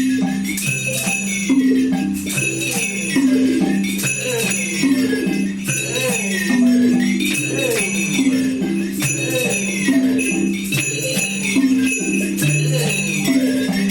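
Classroom percussion ensemble playing a repeating ostinato: a low pitched pattern of notes over jingle bells and shakers, with a high rising-and-falling tone recurring about every second and a half.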